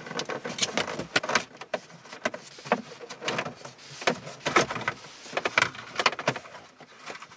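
Plastic clips of a car's centre dashboard air-vent panel clicking and creaking as a pry tool works the panel loose, an irregular run of sharp clicks and snaps.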